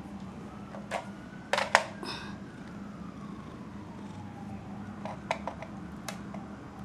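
Sharp clicks and knocks over a steady low hum: a loud cluster about a second and a half in, and a few lighter ones near the end. A faint siren-like tone glides slowly up and then down behind them.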